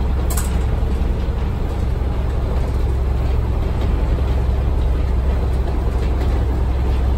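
Restored Leyland Tiger bus heard from inside the passenger cabin while under way: a steady low engine drone with road and body noise, and a brief click about a third of a second in.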